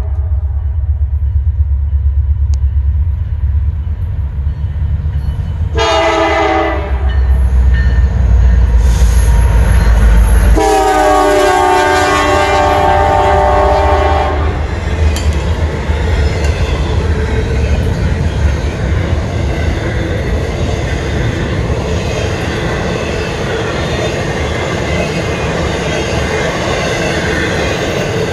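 Norfolk Southern diesel freight locomotives passing with a deep engine rumble. The horn sounds several notes at once: a short blast about six seconds in and a longer one lasting about four seconds from about ten seconds in. After that the rumble drops away and the steady noise of freight cars rolling over the rails carries on.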